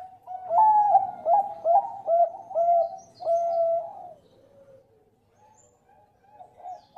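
Zebra dove (perkutut) singing its cooing song: a run of about six loud, clipped coo notes, the last one drawn out, ending about four seconds in, followed by a lull with a few faint notes near the end.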